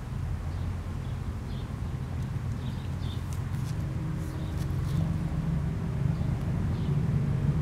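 Steady low outdoor rumble, with a steady engine hum growing from about halfway through. Faint short high ticks and chirps are scattered over it.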